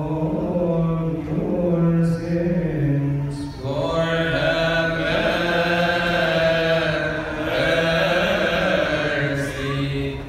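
Coptic Orthodox liturgical chant: a male voice holds long, drawn-out melismatic notes, and the singing grows fuller about four seconds in as more voices join.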